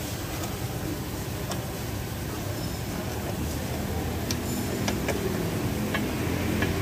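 Scattered light metallic clicks of a hand wrench working a stabilizer-bar bushing bracket bolt under a Toyota Avanza, over a steady low workshop hum.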